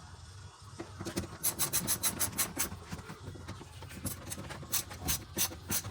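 Rubbing and scraping with a quick run of sharp clicks about a second in, then a few single clicks, as car interior trim and seat parts are worked into place.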